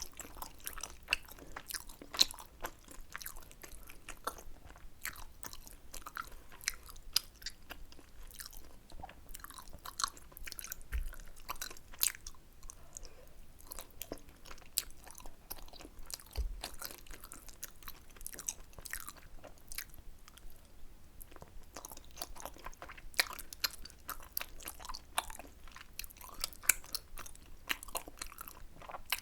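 Close-miked eating of tteokbokki: chewing and biting of chewy rice cakes, a steady run of quick, irregular mouth clicks and smacks. Two soft, deep thumps come about a third of the way in and a little past halfway.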